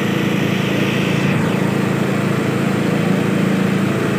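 Diesel engines of two tractors, a John Deere and a Sonalika, running hard and steady under full load as they pull against each other in a tractor tug-of-war.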